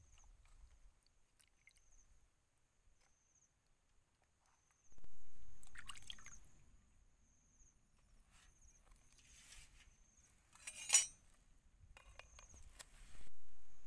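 Water splashing and clinking in an aluminium basin as mushrooms and herbs are washed by hand, with a sharp splash or clink about 11 seconds in. An insect chirps steadily in a repeating high trill, and wind rumbles on the microphone twice.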